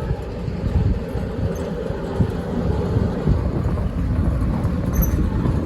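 A 7.25 inch gauge miniature locomotive running under power on its track: a steady low rumble with irregular knocks, growing a little louder toward the end.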